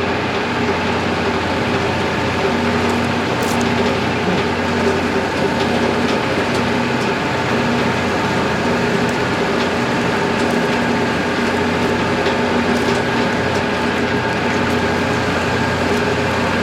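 Wood-Mizer LT40 band sawmill running steadily, its band blade cutting through a yellow pine log.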